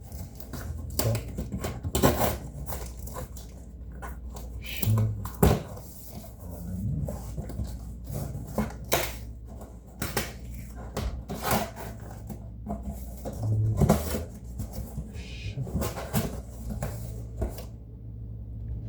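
Irregular knocks, taps and scrapes of objects being handled, with a steady low hum underneath.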